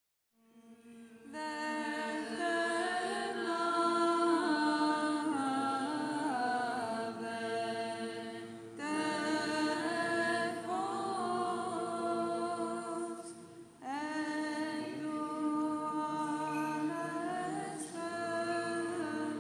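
Unaccompanied Orthodox chant: voices sing a melody over a steady held low drone. They rise out of silence at the start, and the phrases break twice, about nine and fourteen seconds in.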